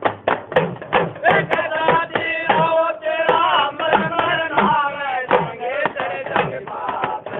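A man singing a devotional folk song (a Goga Ji jagran bhajan) over a steady drum beat, in a thin recording with no high end.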